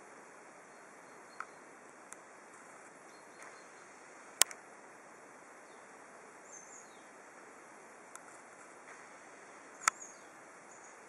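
Quiet lakeside evening ambience: a faint steady hiss with a few faint, short, high bird chirps. Sharp clicks break it now and then, the loudest about four and a half seconds in and another near the end.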